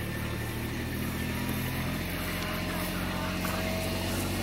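Steady low motor rumble with a hum that shifts slightly in pitch about two seconds in, over an even outdoor hiss.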